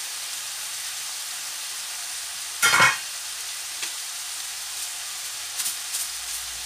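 Minced beef sizzling steadily in a frying pan. A short, loud clatter of kitchenware breaks in about two and a half seconds in, and a few faint clicks follow later.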